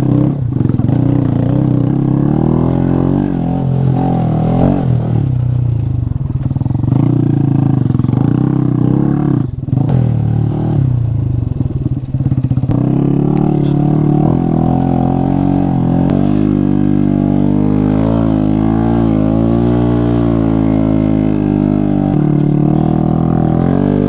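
Honda Grom's single-cylinder 125 cc engine running under throttle while riding, its revs rising and falling continuously. Revs drop briefly about nine and a half and twelve seconds in, and from about sixteen seconds in they swing quickly up and down.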